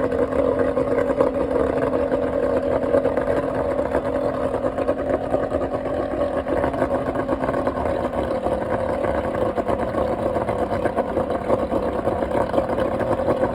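Mariner Magnum 150 hp V6 two-stroke outboard running steadily at a slow idle after warming up, with a steady hum in which one lower tone fades about eight seconds in.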